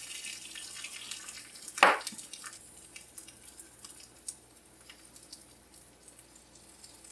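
Butter sizzling and crackling around a fried egg in a carbon steel fry pan, the fine popping thinning out toward the end. One short, louder sound comes about two seconds in.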